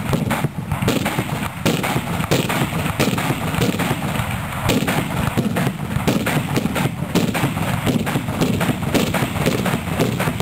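Carbide cannons, milk churns loaded with calcium carbide, firing one after another: an irregular string of loud bangs, roughly one or two a second, each blasting the ball plugged in the churn's mouth into the air.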